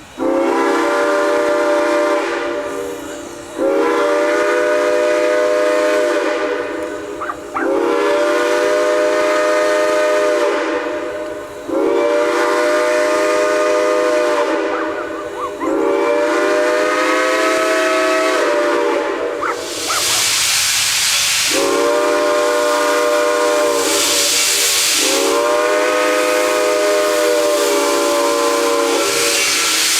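Southern Pacific six-chime steam whistle on steam locomotive Reading & Northern 425, blown in a string of about seven long blasts, each three to four seconds, with short breaks between them. Loud steam hiss fills the pause about twenty seconds in and carries under the blasts after it.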